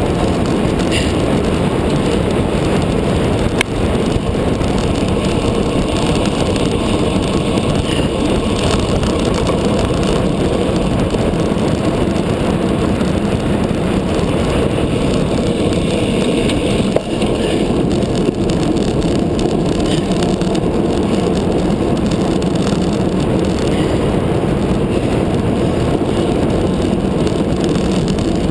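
Steady wind rush and road rumble picked up by a camera mounted on the handlebars of a road bike ridden at race speed, with two brief knocks.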